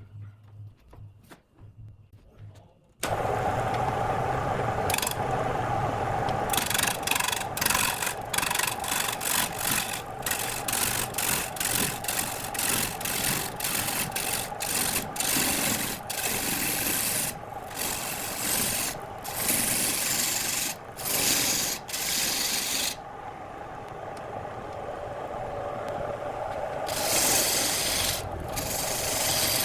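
Wood lathe running, with a turning tool or abrasive rasping against the spinning wood in repeated strokes, starting suddenly about three seconds in over a steady motor hum.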